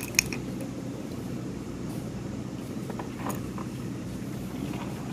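A steady low mechanical hum, with a sharp click about a quarter second in and faint clatter around three seconds in.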